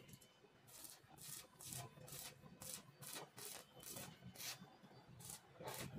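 Faint, even back-and-forth strokes of a hand hacksaw cutting steel pipe, a little over two strokes a second.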